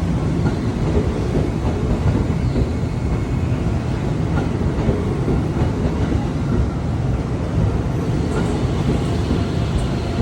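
Tobu 70000 series electric train running along the track, a steady rumble of wheels on rail.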